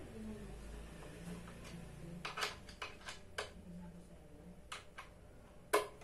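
Small sharp clicks and taps, about seven at irregular spacing with the loudest near the end, from hands working the fittings under an office chair seat during assembly.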